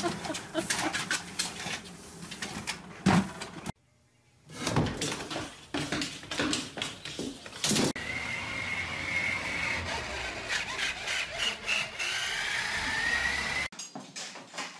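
A quick series of knocks and thumps, then a toy remote-control car's small electric motor whining, its pitch climbing as it speeds up, until it cuts off suddenly.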